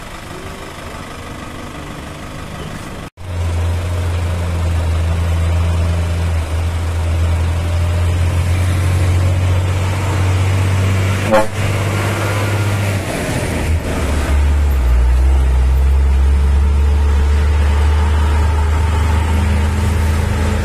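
Heavy diesel truck engines labouring in low gear as loaded trucks climb a steep hill, a deep steady drone that starts suddenly about three seconds in and drops lower in pitch about two-thirds of the way through. A short horn toot sounds a little past halfway.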